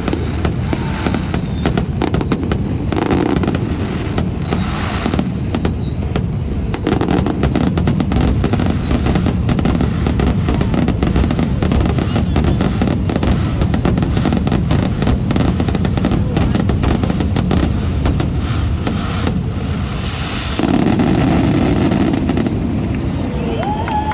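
Fireworks display: a dense, continuous run of bangs and crackles.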